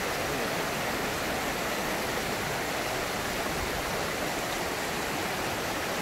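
Shallow mountain stream rushing over a rocky, pebbly bed: a steady, even water noise.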